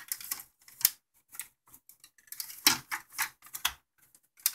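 Irregular plastic clicks and knocks as the CD player unit of a stereo system is worked loose by hand and lifted out of the chassis, with a cluster of sharper knocks a little over halfway through.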